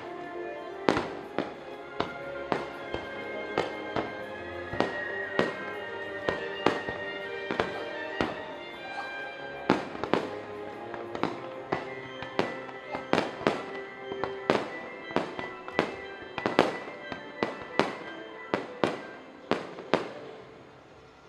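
Fireworks show: dozens of sharp firework bangs over music with long held notes. The bangs come faster and louder in the second half and stop just before the end.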